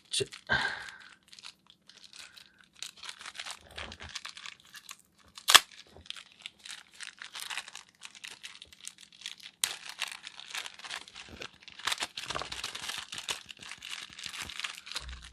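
Packaging crinkling and tearing as a small packet is opened by hand, with one sharp snap about five and a half seconds in.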